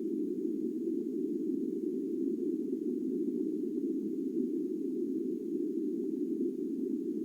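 Low hum sound effect: a steady, dull hum with no clear single pitch, held unchanged at an even level.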